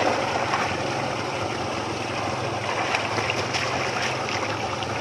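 Feet sloshing and splashing through shallow muddy water, with a few sharper splashes, over a steady low hum.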